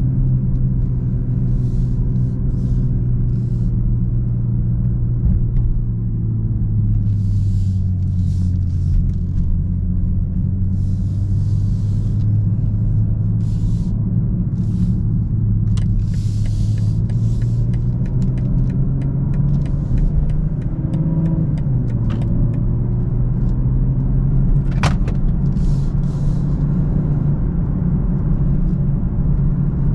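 The 3.0-litre turbocharged straight-six of a BMW M240i xDrive, heard from inside the car as it is driven at steady, moderate revs: a deep, even drone that sags slightly in pitch for a few seconds and then climbs back. Short hisses of road noise come and go, and there is one sharp click a little over three quarters of the way through.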